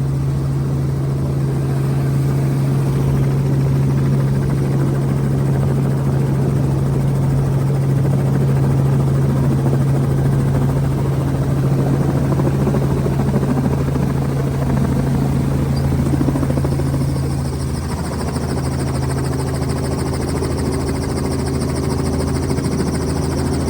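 Helicopter with its doors off: a steady low drone from the rotor and engine, with rushing air over it. About 18 seconds in, the sound dips briefly, then a higher steady whine joins in.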